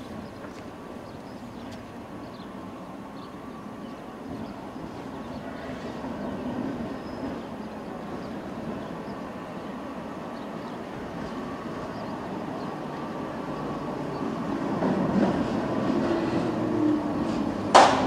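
Historic tram approaching on street track, its running noise slowly growing louder as it nears, with a sharp knock just before the end.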